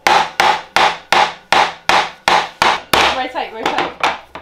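Claw hammer striking a whole coconut on a chopping board: loud, sharp hammering blows, about a dozen at roughly three a second, coming slightly quicker near the end, as the hard shell is beaten to crack it open.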